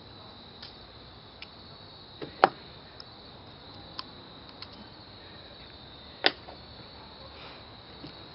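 A few sharp clicks and knocks of the KWA MP9 gas blowback airsoft gun's parts being handled during disassembly, the loudest about two and a half seconds and six seconds in. A steady high insect chirring runs underneath.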